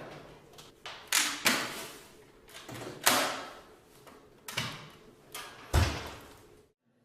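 A series of about five sudden thuds or clunks, each dying away within a second, the last and loudest about six seconds in.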